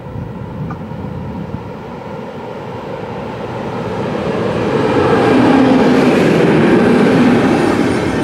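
A Siemens Vectron electric locomotive hauling RegioJet passenger coaches approaches and passes close by. The running noise builds steadily and is loudest as the locomotive goes past about five seconds in, then the coaches roll by on the rails.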